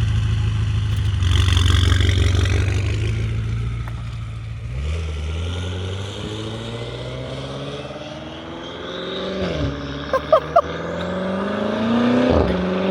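BMW F90 M5's twin-turbo V8 through a catless straight-piped exhaust: a steady low rumble, then the car accelerates hard, the engine pitch climbing through the gears with quick drops at two upshifts. Three short high chirps sound about ten seconds in.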